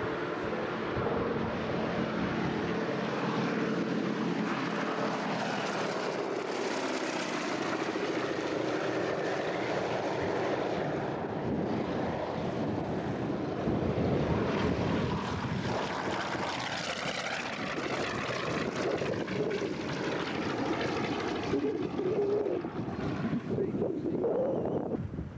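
Piston-engine propeller aircraft running, loud and fairly steady throughout.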